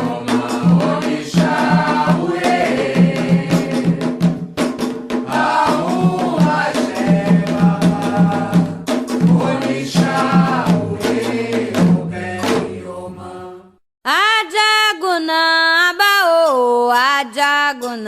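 Candomblé chant (ponto) for Xangô: singing voices over steady drumming, fading out about thirteen seconds in. After a brief silence a single voice starts a new chant without drums.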